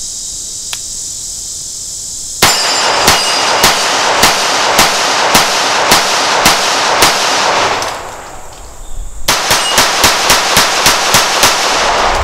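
Nighthawk Custom Fire Hawk .45 ACP 1911 pistol with a single-port compensator being fired. About two seconds in comes a steady string of about ten shots a little over half a second apart, then after a short pause a faster string of about ten shots, roughly four a second. Crickets chirr steadily before the first shot.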